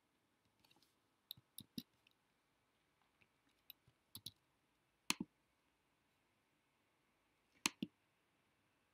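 Scattered sharp clicks of a computer mouse and keyboard, some single and some in quick pairs, the two loudest about five seconds and seven and a half seconds in.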